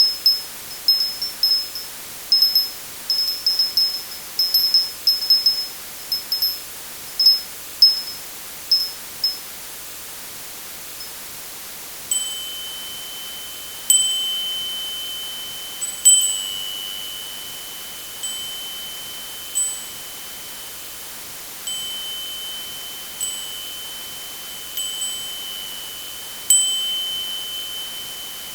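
Small bells: first a rapid, irregular high tinkling that stops about nine seconds in, then after a short pause a single-pitched bell struck at irregular intervals, each strike ringing on.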